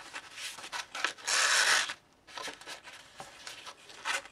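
Paper and card rustling and scraping as folded card flaps are pushed through a slit cut in a thin journal page, with one louder rustle lasting about half a second a little over a second in.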